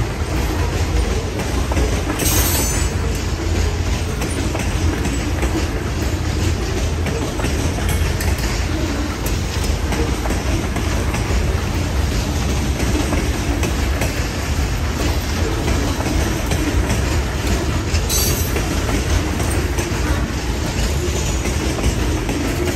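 Loaded-train rumble of freight hopper cars rolling past close by: a steady clatter of steel wheels on the rails, with brief higher screeches twice.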